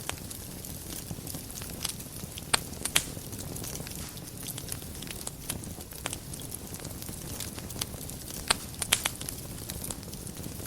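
Wood fire burning in a fireplace: a steady low rumble with irregular crackles and a few sharper pops, the loudest about two and a half to three seconds in and again near nine seconds in.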